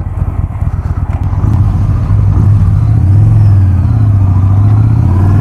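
Yamaha XV950R motorcycle's air-cooled V-twin engine running under way on a cobbled road, its note growing louder about two seconds in as the throttle opens.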